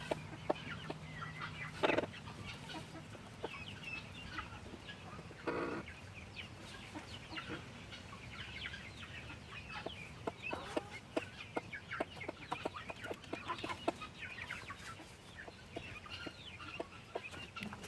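Broody chicken hen clucking, with a couple of fuller clucks in the first few seconds, among many short, high peeps from the guinea keets she is brooding.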